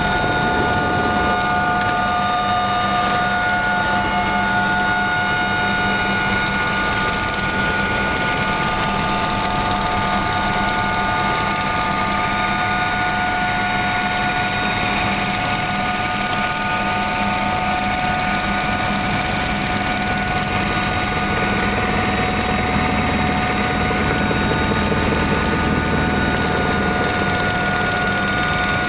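Helicopter engine and rotor noise heard inside the cabin as it takes off and climbs away: a loud steady drone with a constant whine of several high tones.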